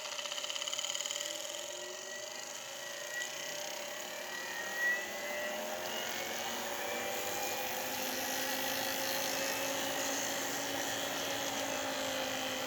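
Treadmill DC motor spinning free with no belt fitted, powered through a variable voltage regulator and rectifier. It gives a steady whine whose pitch slowly rises and shifts as the speed is turned up, and it is super quiet. There is a short knock about five seconds in.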